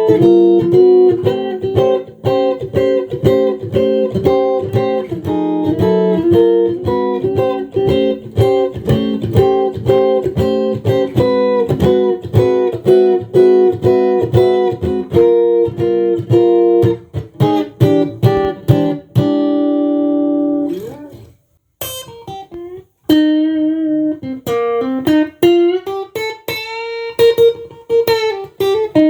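Tomson Spirit Sounds Stratocaster electric guitar being played: fast runs of picked single notes, then a held note that glides in pitch and stops about 21 seconds in. After a short gap come slower notes bent up and down in pitch.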